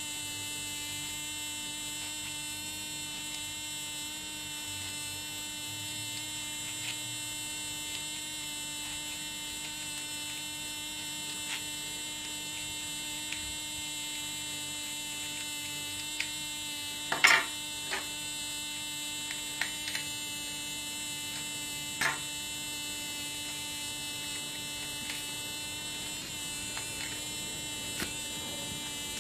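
Steady electrical hum with a buzzing row of overtones. A few short, sharp sounds stand out over it, the loudest about 17 seconds in and a smaller one about 22 seconds in.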